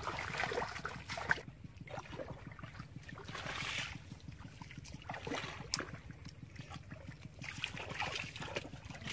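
Shallow muddy water sloshing and splashing in irregular bursts, stirred by people wading and working in it, over a steady low rumble.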